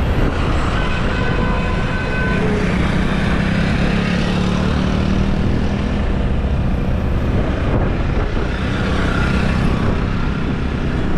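Steady road traffic noise heard from a moving car, with scooters and motorbikes running close alongside. A few brief faint tones, about a second and a half in and again near the end, may be distant horns.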